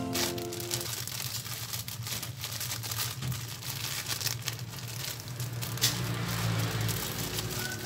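Thin clear plastic bag crinkling and rustling as it is handled and filled with crisp cookies, in irregular crackles.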